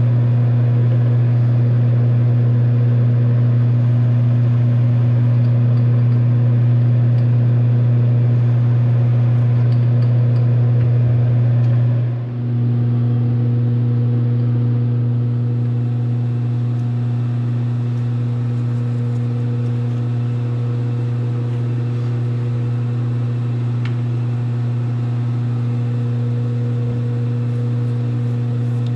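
Metal lathe running with a steady low hum, spinning a steel bar in a four-jaw chuck while a tailstock drill works into its end. The sound dips briefly about twelve seconds in, then carries on.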